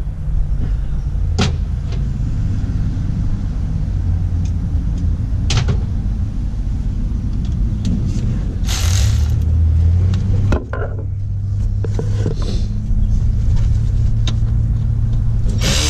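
Steady low rumble with a few sharp clicks, and a cordless ratchet running for about two seconds near the middle, snugging the fuel pump's 15 mm mounting bolts, before stopping abruptly. Music starts right at the end.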